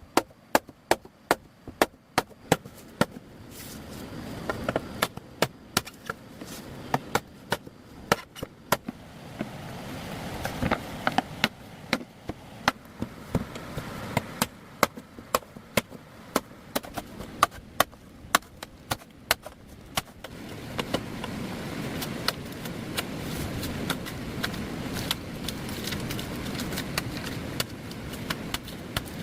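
Wood being chopped with a blade: sharp, irregular strikes, often one to three a second. About twenty seconds in they turn lighter and quicker over a low steady rumble.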